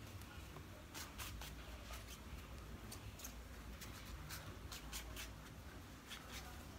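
Faint, irregular scratchy swishes and light clicks of a makeup brush working powder over skin, over a steady low hum.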